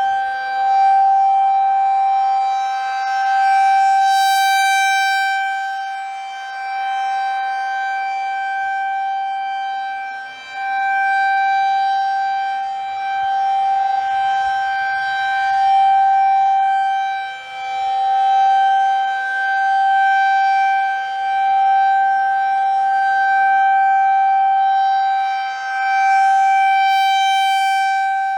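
Federal Signal 2001 electromechanical tornado siren sounding a steady single-tone wail at a constant pitch during its test. The sound swells and fades every three to four seconds as the rotating siren head turns toward and away.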